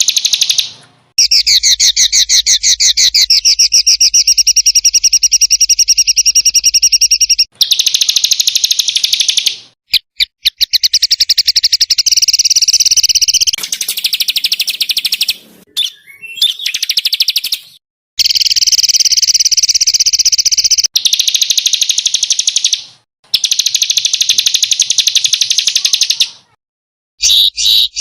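Songbird song made of very fast, loud trills and rapid-fire repeated high notes (the 'tembakan' style used to train competition birds), in spliced segments that cut off and restart abruptly several times.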